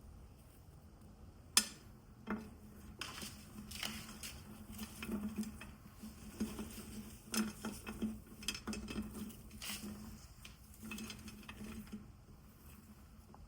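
Close-up handling sounds of craft material: one sharp snap about a second and a half in, then a long run of small irregular crinkles and clicks that dies down near the end.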